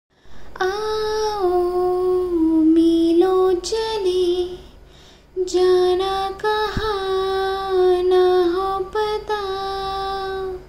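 A woman singing long held notes, the soundtrack of the opening montage, with a short break about halfway through.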